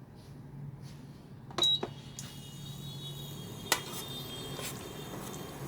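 Metal clicks against a pressure cooker, then a steady hiss sets in about two seconds in as the masala starts to cook, with one sharp metal tap near the middle. A low hum runs underneath.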